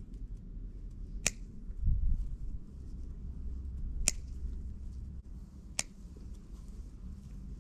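Scissors snipping rosemary sprigs: three crisp snips a couple of seconds apart, over a low rumble that swells about two seconds in.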